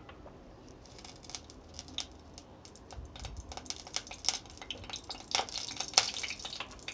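Mustard seeds beginning to crackle and pop in hot oil in a steel pan, a sign that the oil is hot enough for tempering. The crackles start about a second in and come faster and louder toward the end.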